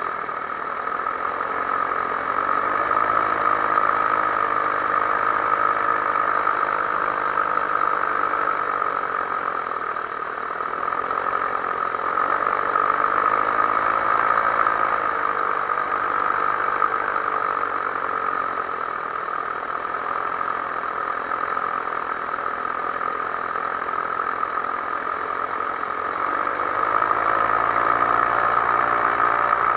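Powered paraglider's paramotor engine and propeller running steadily in flight. The engine speed drifts up and down a little and picks up near the end.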